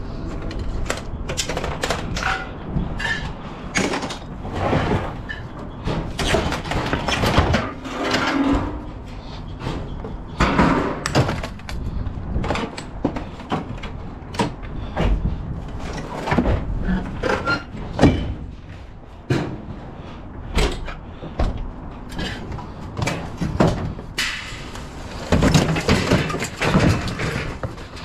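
Irregular knocks and clatter, typical of scrap metal pieces being handled, dropped and shifted.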